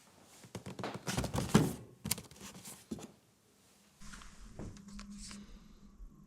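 Unboxing handling noise: rustling, scraping and a few sharp knocks of packaging being handled and opened, loudest in the first half, then lighter clicks over a faint steady hum.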